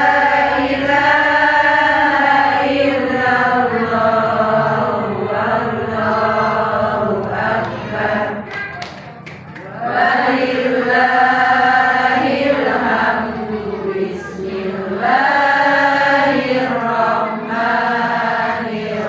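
Melodic Qur'an recitation chanted in long, drawn-out phrases, with breaks between phrases about eight and fourteen seconds in. A few sharp clicks sound in the first break.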